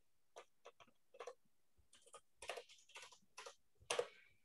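Computer keyboard typing: about fifteen quick, irregular keystrokes, faint, with a louder keystroke about four seconds in.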